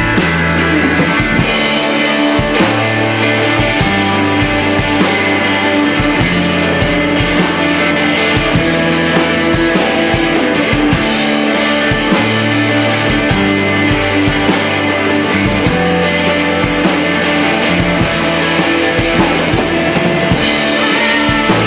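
Live rock band playing with electric guitars and a drum kit.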